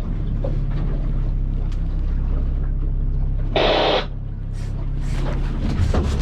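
Boat's outboard motor running steadily at trolling speed, with a half-second burst of hiss about three and a half seconds in. Rapid clicking near the end, like a fishing reel being worked.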